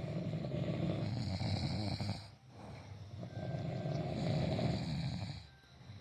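Men snoring in their sleep: two long, rattling snores, the first breaking off about two seconds in and the second fading out near the end.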